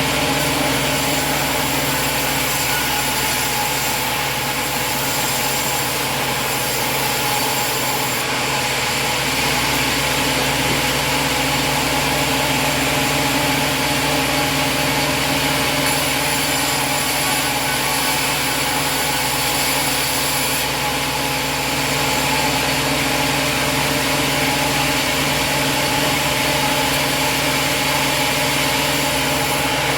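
An engine running steadily at a constant speed, without revving up or down.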